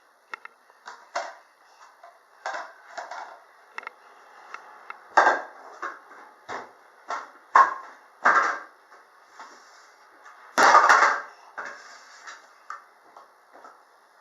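A baby handling toys: irregular knocks, clacks and rattles, with a longer, louder clatter about ten and a half seconds in.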